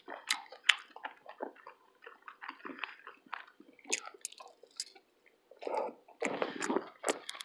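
A person chewing food close to the microphone: irregular wet smacking and clicking mouth sounds, a few each second.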